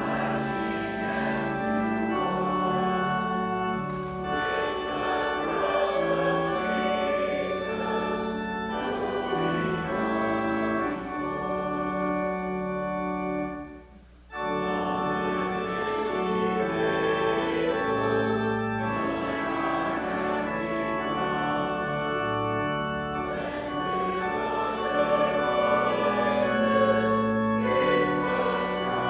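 Church organ playing slow, held chords, with a brief break about fourteen seconds in.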